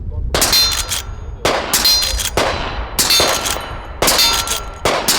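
Suppressed Rossi 92 lever-action rifle firing about five shots, roughly one a second, each hit followed by a steel target clanging and ringing.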